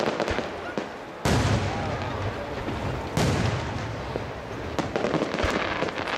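Aerial firework shells bursting: two loud booms about two seconds apart, each trailing off in a long echo, with scattered crackling pops near the start and again near the end.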